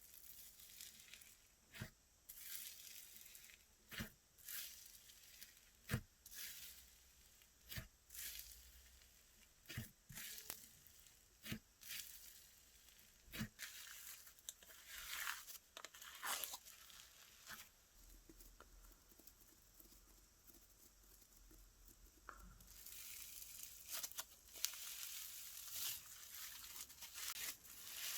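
Slime being squeezed, poked and stretched by hand, giving sharp air-pocket pops about every two seconds, then a continuous crackly sizzling from about three-quarters of the way in.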